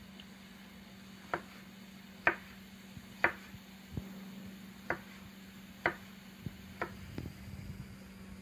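A chef's knife chopping tomato on a plastic cutting board: about six sharp knocks roughly a second apart, with a few softer taps between, over a low steady hum.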